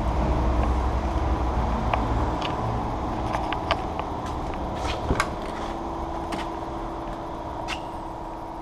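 Steady low mechanical hum of workshop background noise, heavier for the first two and a half seconds, with scattered light clicks and knocks.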